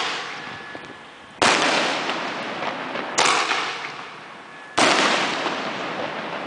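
Aerial fireworks going off: three sharp bangs about a second and a half apart, each followed by a fading hiss.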